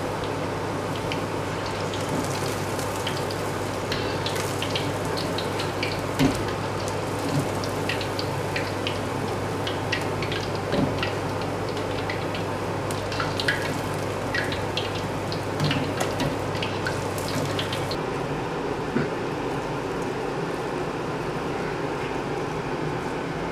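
Battered crayfish pieces deep-frying in a wok of hot oil: a steady sizzle with frequent small crackles and pops. A low steady hum underneath stops near the end.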